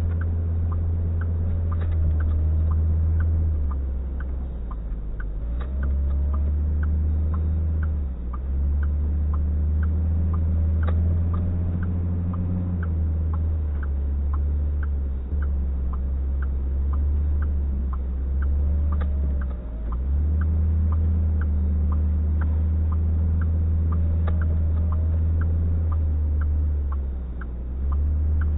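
Steady low rumble of a vehicle, with a light, even tick about twice a second.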